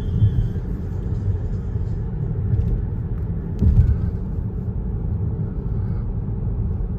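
Steady low rumbling noise, with a brief louder swell about three and a half seconds in.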